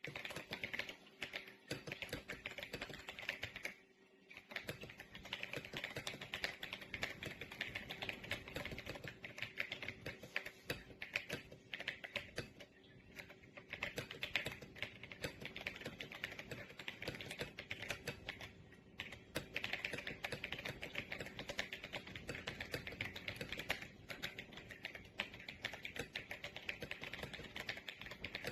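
Fast, continuous typing on an RK Royal Kludge S98 mechanical keyboard: a dense run of keystroke clicks with brief pauses about 4, 13 and 19 seconds in.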